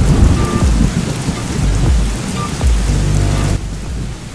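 Thunder rumbling over steady heavy rain; the rumble eases off about three and a half seconds in.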